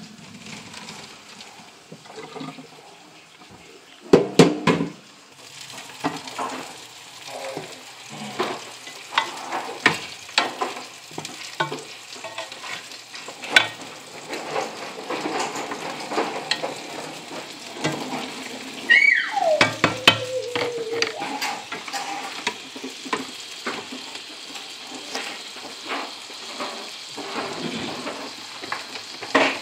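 Kitchen stovetop cooking: cooked pasta tipped into a plastic colander, then utensils knocking and stirring in pots while butter and garlic sizzle in a saucepan. Irregular clatters run throughout, the loudest a few seconds in, and a short falling squeal comes about two-thirds of the way through.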